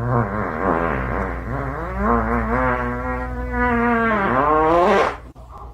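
A long, buzzy, wavering vocal cry that settles on a steady pitch, then sweeps sharply upward and cuts off suddenly near the end.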